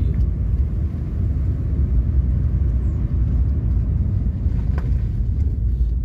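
Car driving slowly over a worn, broken road surface, heard from inside the cabin: a steady low rumble of engine and tyres.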